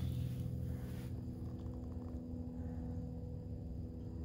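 Steady low mechanical hum, as of a motor running, with a soft hiss in the first second.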